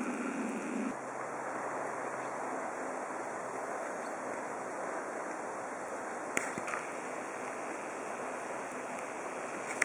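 Steady rushing hiss of wind outdoors in a snowfall, with a couple of faint clicks partway through.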